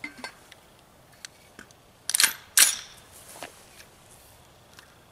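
Charging handle of an AR-style rifle fitted with a can launcher being pulled back and let go: two sharp metallic clacks about half a second apart, readying the rifle to launch a can.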